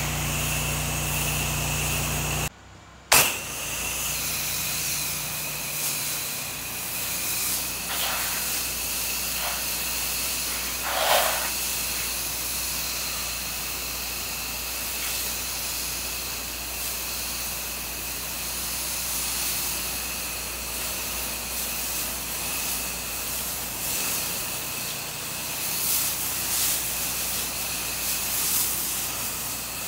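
Pressure washer spraying a sodium hypochlorite (SH) mix through a 1.8 downstream injector onto house siding: a steady hiss of spray over the running machine, with a steady high whine. A brief dropout and a sharp click come about three seconds in.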